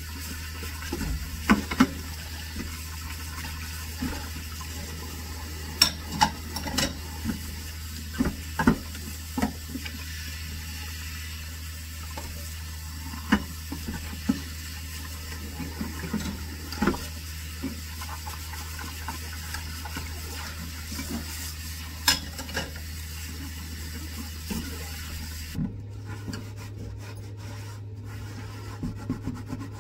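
Tap water running into a stainless steel sink while crockery is hand-washed, with plates, cups and glasses clinking and knocking now and then over a steady low hum. Near the end the water stops and a sponge scrubs a plate.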